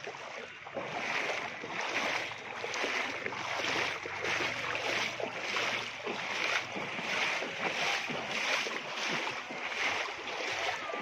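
Footsteps wading through shin-deep muddy floodwater, a slosh and swish of water with each stride, about three strides every two seconds.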